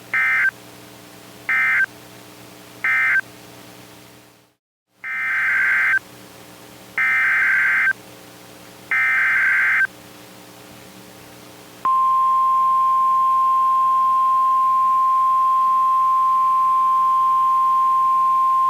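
Emergency Alert System data bursts on NOAA Weather Radio. Three short end-of-message bursts sound, then after a brief dropout three longer, about one-second header bursts for the next alert. About 12 seconds in, the steady 1050 Hz weather radio warning alarm tone starts and holds.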